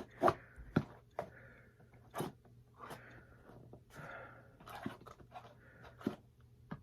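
A shipping box being cut open by hand: a blade scraping through packing tape and cardboard, with several sharp knocks and clicks as the box is handled.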